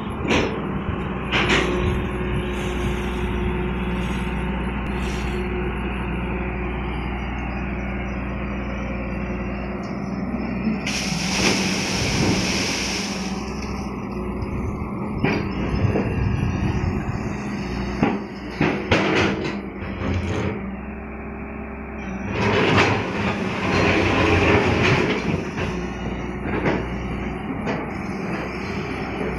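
Long-reach hydraulic excavator's diesel engine running steadily under load, with repeated clanks and knocks as the bucket digs into rocky soil and mud. A brief hiss comes about eleven seconds in.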